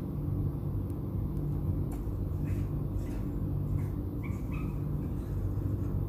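A steady low rumble, with a few faint short chirps from a caged bulbul about halfway through.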